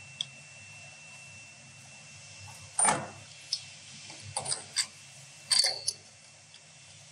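Steel adapters and a T-handle tool clinking and knocking against each other and the bench's metal cam housing as a Cummins PT injector is fitted with its adapter: a loud knock about three seconds in, then several lighter clicks and a short clatter near the end, over a faint steady hum.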